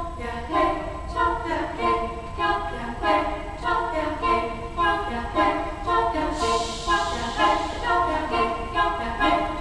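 Girls' choir singing a cappella in several parts, in short, rhythmic notes, with a brief hissing sound joining high above the voices about six seconds in.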